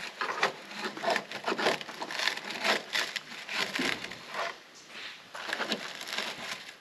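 Repeated, irregular scraping and rubbing strokes against the Hummer H3's bodywork as it is being cleaned up.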